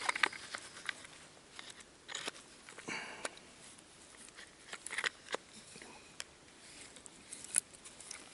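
Handling a small axe and its webbing belt pouch: scattered rustles of fabric and straps and light clicks as the covered axe head is worked into the holder, with one sharper click near the end.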